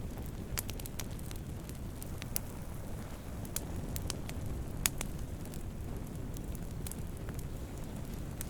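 Wood campfire burning: a steady low rush of flames with scattered sharp crackles and pops, the loudest pop coming about five seconds in.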